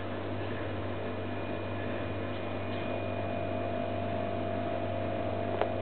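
Steady low hum with a faint, even whine above it, and one sharp click near the end.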